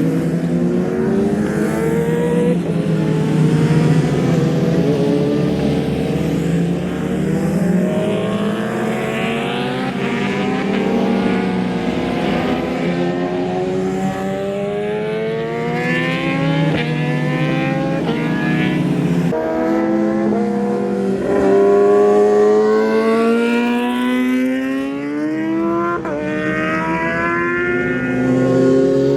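Several sport motorcycles (superbikes, supermotos and naked bikes) running hard through a track corner, their engines overlapping: pitch falls as they brake and downshift into the turn, with sharp blips, then rises as they accelerate out.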